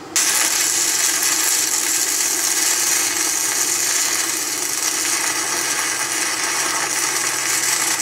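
Electric arc welding with a small inverter welder: the arc is struck just after the start and runs a steady, loud crackling hiss as the bead is laid.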